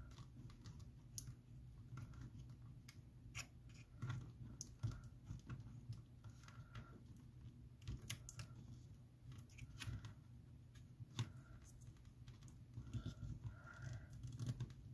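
Faint, irregular small clicks and scrapes of a pry tool working under an iPhone 8 Plus battery that is held down by strong adhesive.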